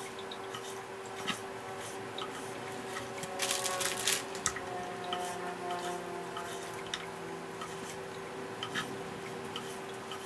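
Kitchen knife cutting marinated nilgai meat into chunks on a wooden cutting board: soft wet squishing, with scattered light knocks of the blade on the board and a denser clatter about three and a half seconds in, over a steady hum.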